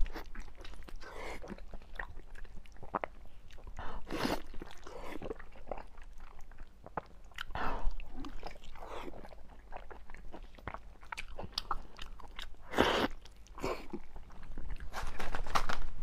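Close-miked biting and chewing of braised beef knee bone with its tendon and cartilage: many short mouth clicks and smacks, sped up to double speed.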